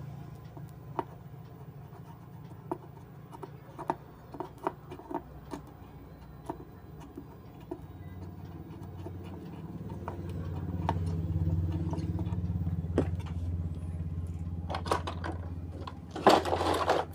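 Hand soldering on a circuit board: small scattered clicks and taps as the soldering iron and solder work the pins of a chip. A low steady hum swells up in the second half, and a louder clatter of tools being handled comes near the end.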